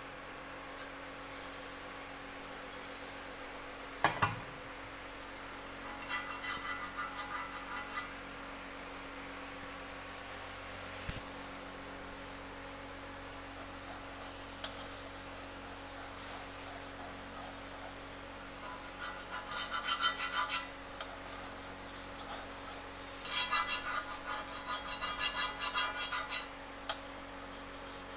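Fingers rubbing and scraping across black textured-paint aluminium window profiles, a rasping sound in runs of quick strokes that come heaviest in the second half. A single sharp knock about four seconds in, as a profile is handled.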